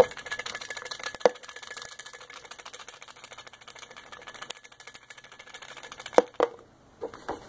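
Folded paper slips shaken and rattling inside a clear plastic container, a dense patter of small ticks, with a few sharp knocks of the container, one about a second in and two close together near the end.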